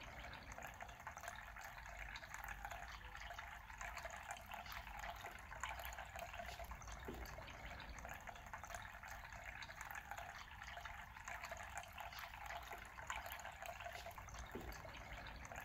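Faint, steady rushing background noise that holds even throughout.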